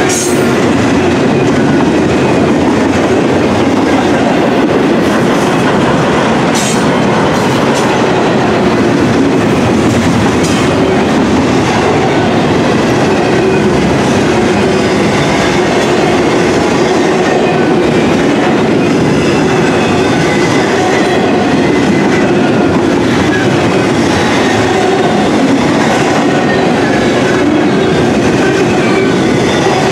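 Double-stack container well cars of a freight train rolling past: a steady, loud rumble of steel wheels on rail, with clacking over the rail joints.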